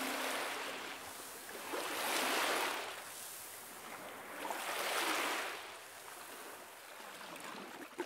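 Small waves washing up on a sandy beach: the surf swells twice, about two and five seconds in, and fades out near the end.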